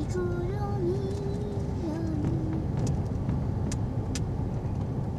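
Steady engine and tyre rumble heard from inside a vehicle's cabin as it drives slowly along a paved road. A faint wavering tone sits over it for about the first half, and there are a few light clicks.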